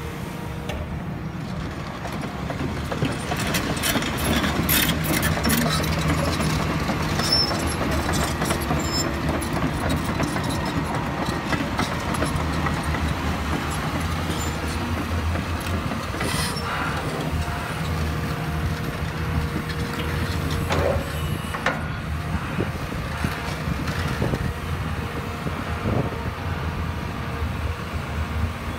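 Cat 323E tracked excavator's diesel engine running steadily, rising in level about three seconds in as the boom and bucket are worked, with a few knocks and clanks from the machine along the way.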